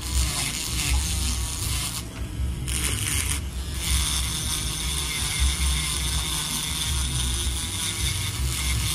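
Electric podiatry nail drill spinning a white ceramic cone bit and grinding down a thickened toenail, a continuous grinding whir over a low motor hum. A steady high whine settles in about four seconds in.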